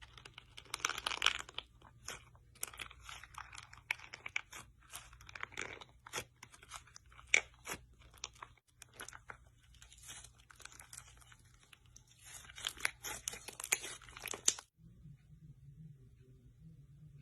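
Slime being squeezed and pressed by hand, crackling with a dense run of small pops and sharp clicks; it stops suddenly near the end.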